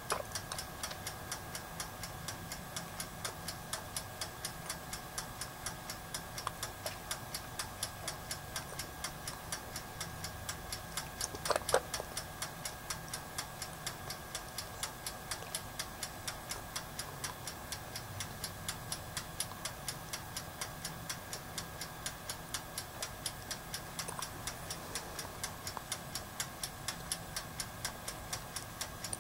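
Toaster oven's mechanical timer ticking steadily and evenly while the oven heats a circuit board for solder reflow, with one brief louder sound about twelve seconds in.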